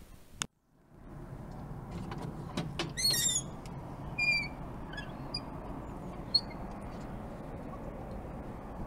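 Outdoor ambience heard through an open window: a steady low background hum, with small birds calling. The loudest call is a quick run of chirps about three seconds in, followed by a few single short whistled notes.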